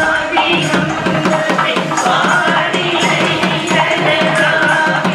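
Traditional temple music: drums playing a steady, fast beat with a higher melodic line gliding over it.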